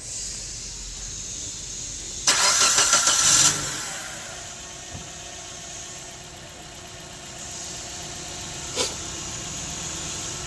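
Maruti Suzuki Baleno engine cranked by its starter motor through a wire touched directly to the starting relay, bypassing the accident-damaged BCM: a loud pulsing crank of about a second starting a little over two seconds in, then the engine catches and settles into a steady idle. A single sharp click comes near the end.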